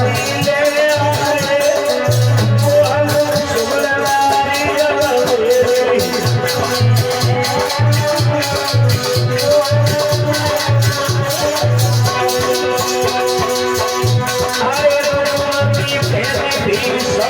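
Dance music with a steady beat: a fast shaker-like percussion pattern, regular deep bass-drum pulses and a wavering melody line.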